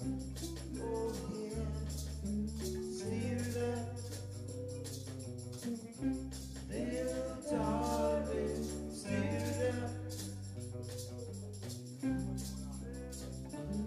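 Live reggae band playing, with electric guitars, drums and fiddle, vocals, and hand shakers keeping a steady rhythm.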